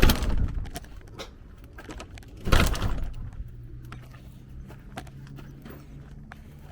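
Two loud thuds with a rattling tail, about two and a half seconds apart, then scattered light clicks over a faint steady low hum.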